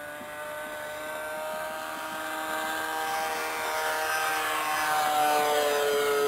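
RC model airplane's motor and propeller running steadily in flight, growing louder as the plane comes close, with the pitch dipping slightly near the end as it passes.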